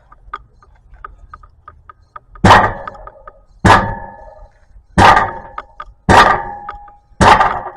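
A Ford E350 camper's exhaust at the catalytic converter, struck hard five times about a second apart, each blow ringing briefly like sheet metal. The banging is to bring out a loose 'rock' inside the converter, which the owner suspects is behind the camper's poor acceleration.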